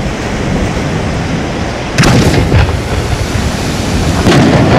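A 150 mm Italian display shell fired from its mortar: a heavy launch boom about two seconds in, then a second boom near the end, over a steady rushing rumble.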